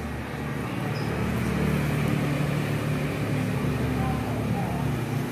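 Steady low mechanical hum over a rumbling background noise.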